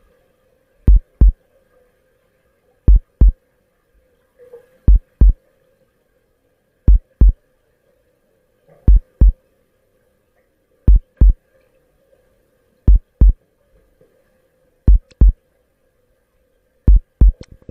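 Heartbeat sound effect: a low double thump repeating evenly every two seconds, nine beats in all, over a faint steady hum.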